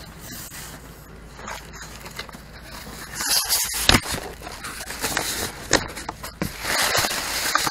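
Plastic foam-packaging bag and cardboard box rustling and crinkling as they are handled and pulled open, with scattered clicks and scrapes, louder from about three seconds in.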